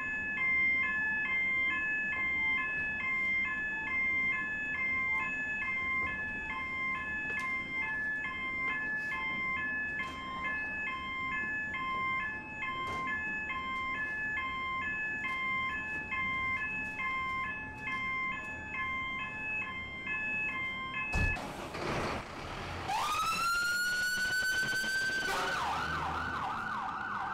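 An electronic two-tone alarm alternating about twice a second, then a sudden knock as a fire engine's siren starts, winds up in a rising pitch and switches to a fast warble near the end.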